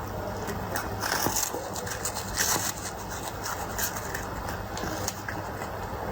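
A cat eating: irregular small crunches, clicks and scrapes, with a steady low hum underneath.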